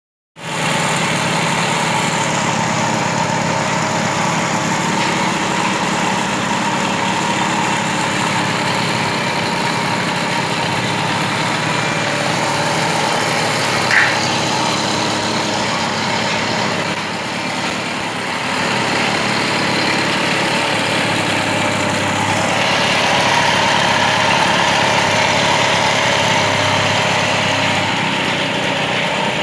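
A 1980s Hero Majestic moped's small single-cylinder two-stroke engine idling steadily after repair, on its first start. It runs a little louder in the last few seconds.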